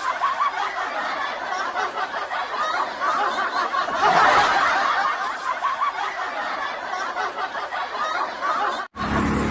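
Laughter: fast, choppy snickering and chuckling, thin-sounding with almost no bass, cutting off abruptly near the end.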